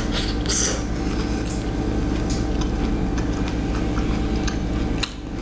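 A person chewing a crisp toasted English-muffin pizza, with scattered small crunching clicks over a steady low hum.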